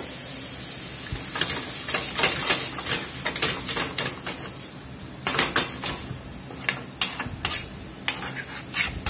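Diced celery and onion sizzling in oil in a stainless steel skillet, with many short metallic knocks and scrapes as the pan is shaken on the gas grate and a metal spoon stirs against the pan. The sizzle is loudest at first.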